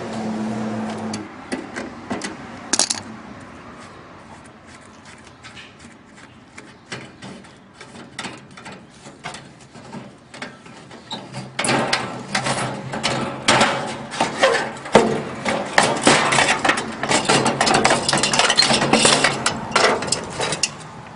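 Metal parts clinking and scraping as hand tools work loose a water heater's aluminum-and-steel fitting: scattered light clicks at first, then, about halfway through, a louder dense run of rapid metallic clicking and scraping.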